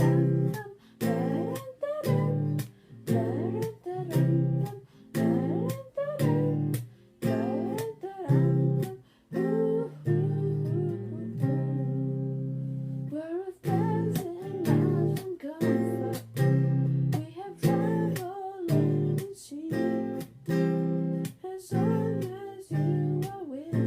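Acoustic guitar strummed in a choppy rhythm, each chord cut short with brief silences between. About halfway through, one chord is left ringing for roughly three seconds before the choppy strumming resumes.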